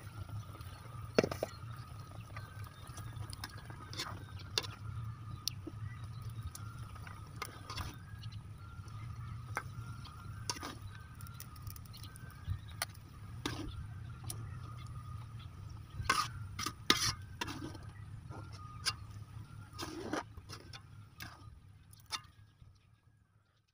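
Metal spatula clinking and scraping against an aluminium wok while cooked banana flower is stirred and ladled out, many short sharp clinks at irregular intervals, over a steady low rumble.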